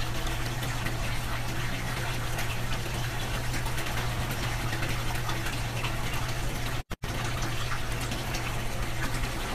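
Steady rush of running water with a low hum underneath, cutting out for a split second about seven seconds in.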